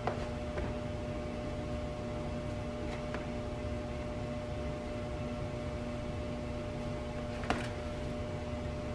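Steady appliance hum with room hiss, broken by a few light clicks of raw pork ribs being handled in a plastic container and on a baking pan, the sharpest about seven and a half seconds in.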